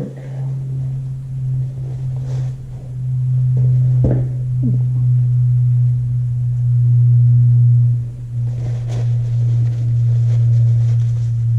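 A steady low hum, with a light knock about four seconds in.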